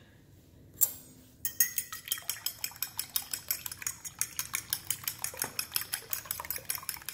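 Metal fork beating raw eggs in a ceramic bowl: after a single clink, the tines tap against the bowl in a fast, even clicking rhythm, several strokes a second, starting about a second and a half in.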